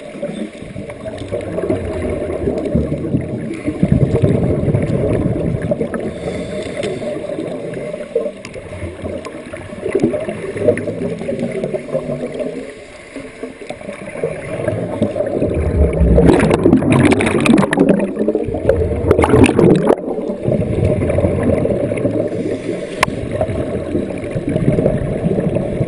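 Muffled underwater sound through a camera housing: a steady low rumble of moving water, with two loud bubbling bursts about two-thirds of the way in from scuba divers exhaling through their regulators.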